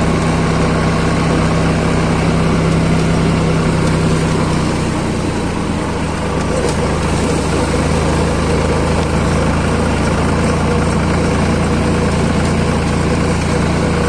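Farm tractor engine running steadily as the tractor drives along, heard from the driver's seat. The engine note drops a little about five seconds in and then holds steady.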